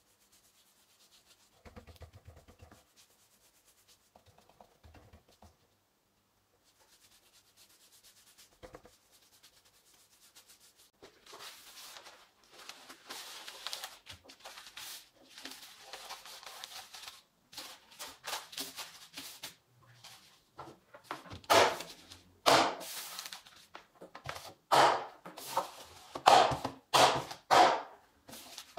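Black plastic liner sheet rustling as it is pressed into a wooden planter. Then an electric staple gun fires staples into the wood one after another, several sharp, loud snaps about a second apart near the end.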